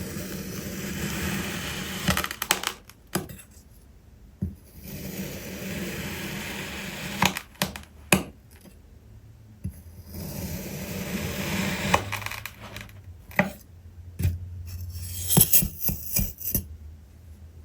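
Kinetic sand being worked with a hard tool: three long, grainy scraping passes, each followed by a few sharp clicks and taps against a hard container, with a quick run of clinks near the end.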